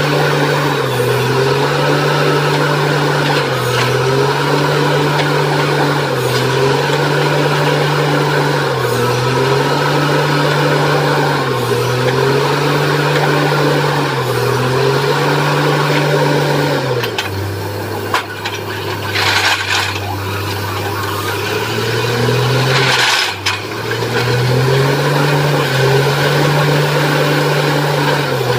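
Borewell drilling rig's engine running under load, its note dipping briefly about every two and a half seconds. Past the middle it drops to a lower steady note for several seconds, with two short hissing rushes, then the regular dips resume.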